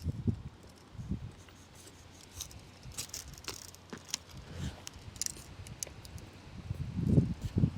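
Scattered light clicks and jangles, like small metal objects or hand tools being handled, with a few soft dull thumps.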